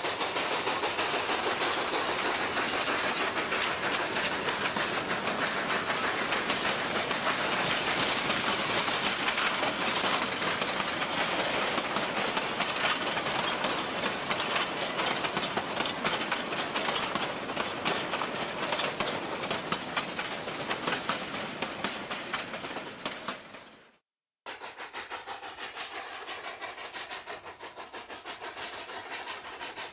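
Rio Grande narrow gauge steam freight train rolling past close by, its wheels clicking rapidly over the rail joints, with a thin high whine over the first few seconds. About 24 seconds in the sound breaks off for a moment and returns quieter, as a more distant train running.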